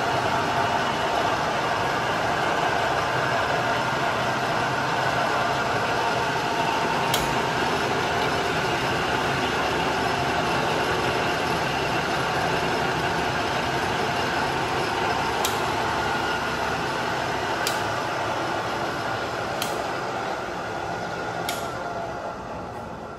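Clausing gang-head drill press with several heads running at once: a steady whir of the 3/4 HP three-phase motors and spindles, with the spindle bearings on a few heads sounding a little rough, which the seller judges does not affect function. Several sharp clicks come about two seconds apart near the end, and the running sound dies down.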